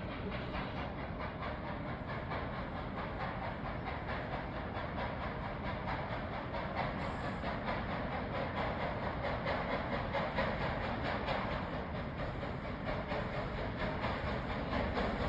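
Steam train moving on the rails: a steady rumble and rattle of wheels on track, with hissing steam, growing a little louder toward the end.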